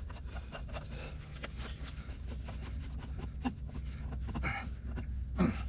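Small clicks and rubbing from hand work on fuel filter parts, over a steady low hum. A short falling vocal sound near the end.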